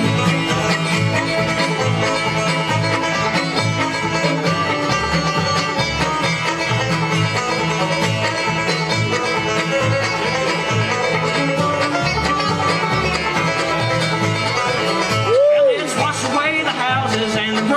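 Live bluegrass band playing an instrumental break, with banjo picking over guitar and bass notes on a steady beat. A brief loud note slides up and back down about fifteen seconds in.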